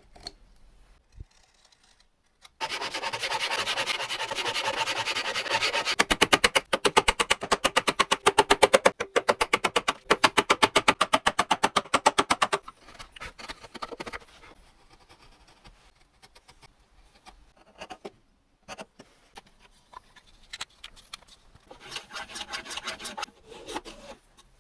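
Hand tool working wood: a stretch of steady rubbing, then rapid, even strokes, several a second, for about six seconds, followed by scattered light knocks and scrapes and another short bout of rubbing near the end.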